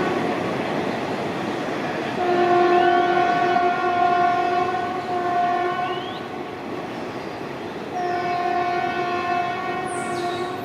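Horn of an Alsthom diesel-electric locomotive sounding as the train runs past, over the rumble of the train. It gives a long blast from about two seconds in to about six seconds, with a brief break near the end of it, and another long blast starting about eight seconds in.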